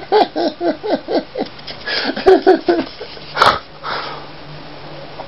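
Scottish terrier whining in short, rapid cries, about four a second, with a second run of cries a little later. A single sharp click comes about three and a half seconds in.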